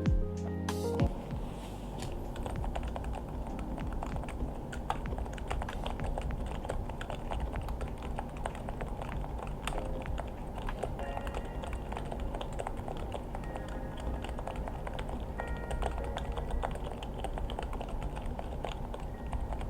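Typing on a RULE60 keyboard with Topre switches and case foam: a fast, continuous run of keystrokes, with background music underneath.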